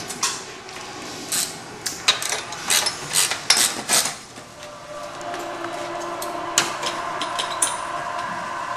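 Sharp metal clanks and knocks, several a second for the first few seconds, as a long hand tool works an exhaust clamp and the steel exhaust pipe is loosened from it. From about five seconds in a steady mechanical hum sets in, with a few more clicks over it.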